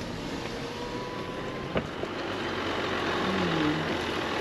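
Jeep crawling slowly over a rough, overgrown dirt two-track, heard from inside the cab: the engine and tyres make a steady rumble, with a single sharp knock a little under two seconds in.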